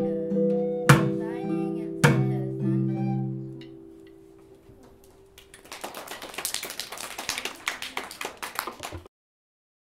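Acoustic guitar strumming the last chords of a song, which ring out and fade away. About six seconds in comes a burst of clapping that cuts off suddenly near the end.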